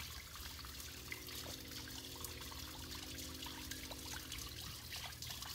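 Faint trickling and lapping of shallow water where a soft plastic jerk bait is being twitched at the surface, with a faint steady drone in the middle of the stretch.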